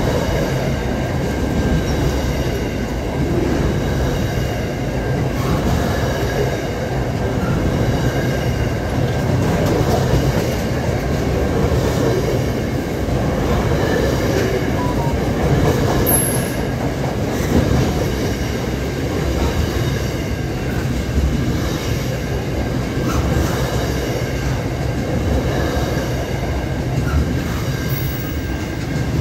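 Double-stack container freight train's wagons rolling past close by: a steady, loud rumble of steel wheels on rail that does not let up.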